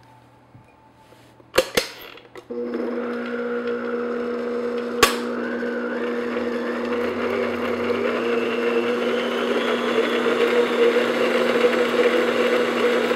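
Electric stand mixer switched on after a few clicks about two seconds in, its motor running with a steady hum as the flat beater mixes flour into chocolate cake batter in a glass bowl. A single sharp click comes about five seconds in.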